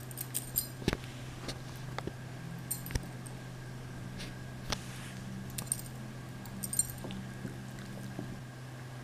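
A dog's collar jingling faintly in a few brief clusters of small metallic clinks as the dog moves its head, over a steady low hum.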